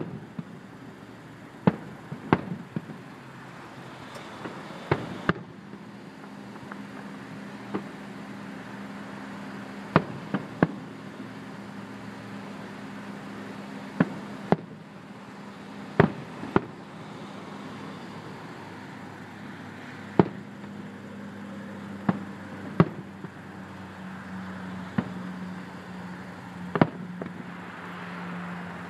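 Aerial firework shells bursting in the distance: sharp bangs come irregularly, one every second or few. About six seconds in, a steady low engine hum starts beneath them.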